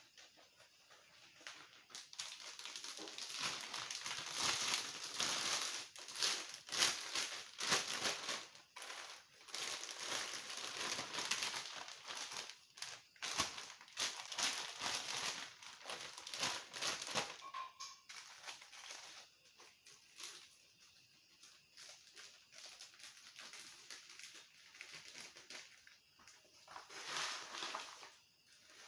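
Crisp fried cassava chips rustling and crackling against each other as they are handled, in dense, irregular bursts that thin out about two-thirds of the way through and pick up again briefly near the end.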